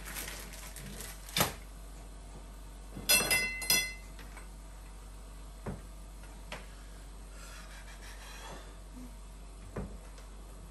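Metal tubes of a Jolly Jumper stand knocking together as they are fitted: a light knock, then a loud ringing metallic clink about three seconds in, followed by a few scattered taps.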